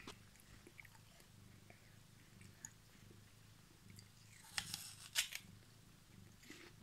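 Mother cat purring quietly and steadily while her newborn kittens nurse, with faint suckling ticks and two short clicks about four and a half and five seconds in.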